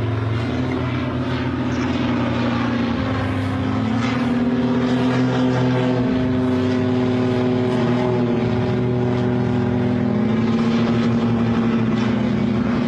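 Light propeller aircraft engines droning overhead, a steady hum whose pitch shifts several times as the planes manoeuvre.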